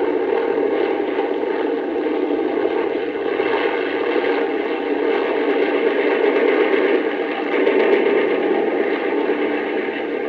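Steady drone of aircraft engines, several fixed tones held over a noisy rumble without rising or falling.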